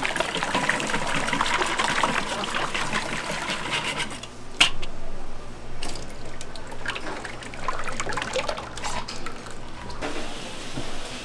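Hot oil in a deep fryer bubbling and crackling as chicken fries. The bubbling is densest for the first few seconds, then thins, with a single metal clank about four and a half seconds in.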